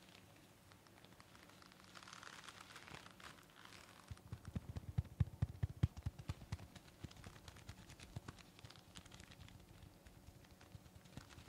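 Close-miked handling of a surgical mask: soft crinkling and rubbing, then a run of quick fingertip taps and scratches from about four seconds in, thinning out after about seven seconds.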